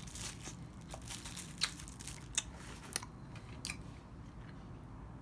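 Person chewing a soft chile candy close to the microphone, with a few sharp mouth clicks.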